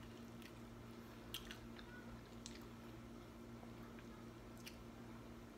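Faint chewing of a buffalo wing: a few short, sharp mouth clicks and crunches scattered over a steady low hum.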